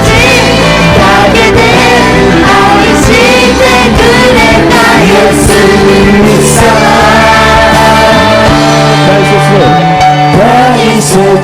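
Upbeat Christian worship pop song with a full band and singing.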